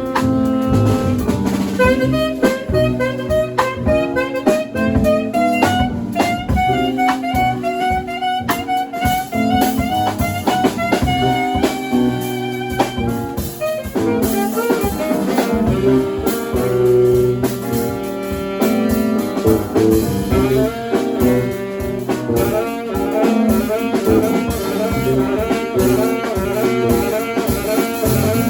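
Live jazz band playing an instrumental passage: a saxophone plays fast runs of notes over a drum kit.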